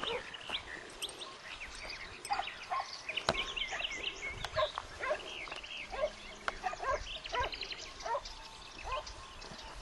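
Hare-hunting hounds yelping and giving tongue on a trail, mixed with birds chirping: many short, overlapping calls throughout.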